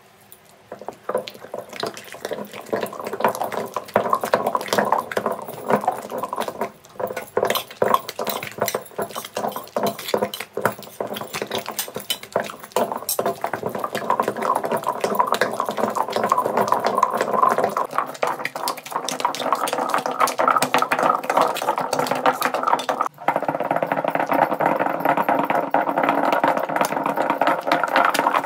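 Stone pestle ground round a stone mortar through boiled chana dal and jaggery: a continuous run of rapid scraping and clicking of stone on stone, with wet grinding through the paste.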